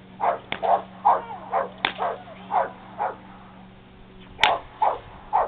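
Australian Shepherd barking at the helper during protection training: a quick run of about eight sharp barks, a short pause, then three more.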